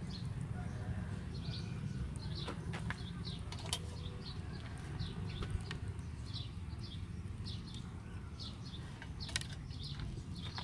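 Wood fire burning in a brick-and-clay stove, with a low steady rumble and a few sharp crackles. Small birds chirp over it in short repeated calls.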